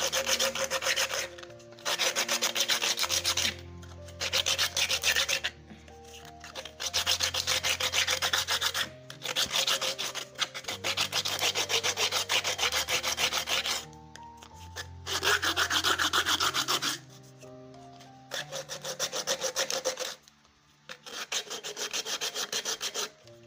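Sandpaper scrubbing the hard, dried woody shell of a monkey orange in rapid back-and-forth strokes, smoothing its raw surface. The sanding comes in bouts of one to three seconds with short pauses between.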